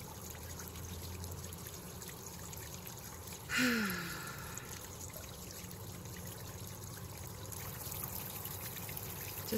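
Steady trickling water in the background, with a short falling vocal sound, like a sigh, about three and a half seconds in.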